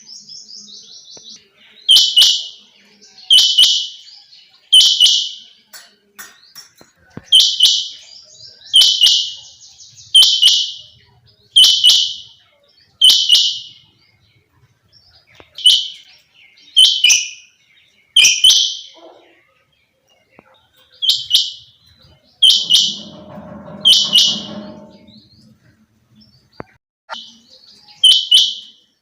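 Female quail calling: short, high-pitched calls repeated about once a second, in runs broken by short pauses.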